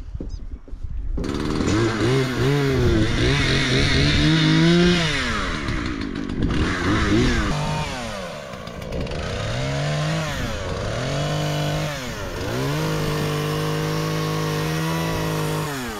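Two-stroke chainsaw revving up and down repeatedly as it cuts through pine branches, holding at high revs for a couple of seconds at a time. It starts abruptly about a second in and drops back near the end.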